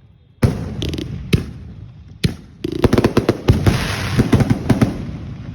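Fireworks going off: three separate loud bangs about a second apart, then a dense crackling volley of many quick reports for about two seconds, fading out.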